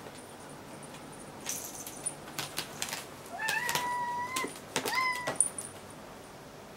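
A cat meows twice, first a meow of about a second that rises and then holds, then a short one, with light clicks and taps scattered around them.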